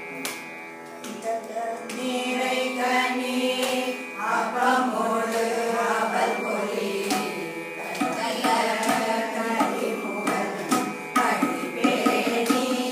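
A group of women singing a Carnatic-style devotional song in unison, with sharp percussion strokes now and then.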